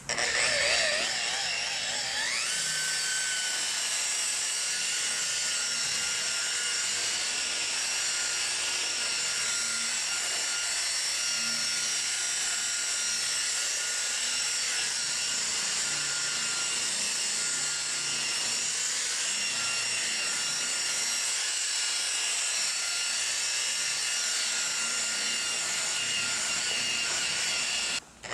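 Electric paint polisher spinning up over about two seconds to a steady high whine and running continuously while buffing paint. It cuts out briefly near the end and spins up again.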